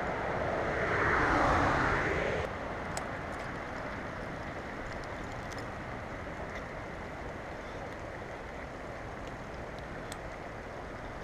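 Steady rushing of stream water, with a louder swell of rushing noise in the first couple of seconds and a few faint clicks.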